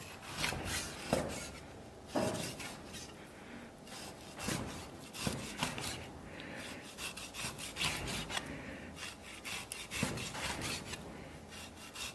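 Chinese cleaver slicing raw lean pork on a wooden chopping board: the blade rubs and rasps through the meat, with repeated short knocks as it meets the board at uneven intervals.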